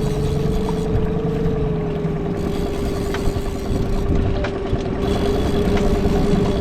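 Boat motor running steadily at trolling speed, a constant droning hum with a low rumble under it and a few faint clicks.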